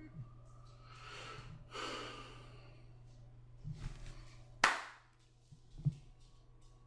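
A man breathing out audibly twice, close to the microphone, over a steady low hum. Later there is a single sharp click, the loudest sound, and then a softer knock.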